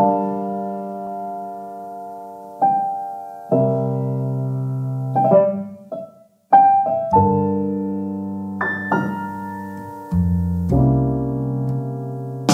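Background piano music: slow held chords, each dying away, with a short break a little past halfway.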